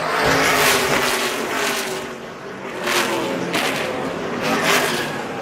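NASCAR stock car V8 engines running at racing speed, with several loud swells as cars rush past one after another.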